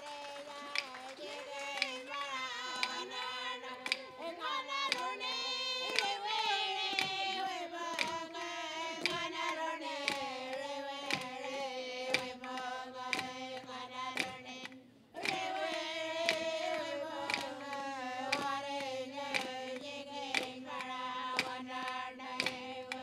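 Anangu inma song: singing in long phrases that slide down in pitch, over a steady beat of sharp percussive strikes. The singing breaks off briefly about fifteen seconds in, then starts again.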